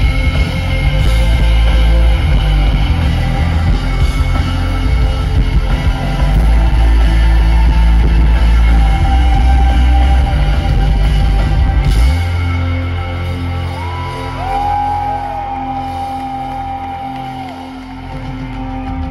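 Live rock band playing loud through a festival PA, heard from the crowd. About twelve seconds in, the drums and bass drop out and held tones ring on, getting quieter.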